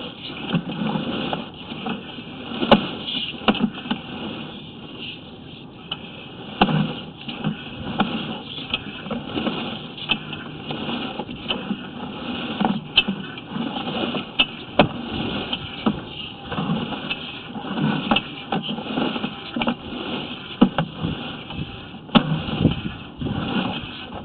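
Sewer inspection camera rig being fed through a 4-inch clay sewer lateral: irregular clicks and knocks from the push rod and equipment over a low rumbling noise.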